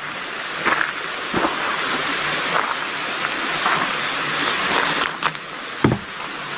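Steady high-pitched chorus of insects, with a few soft knocks or footsteps, the sharpest about six seconds in.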